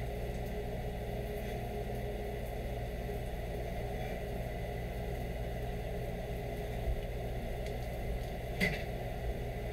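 Kitchen range-hood vent fan running, a steady hum. A short sharp sound cuts in near the end.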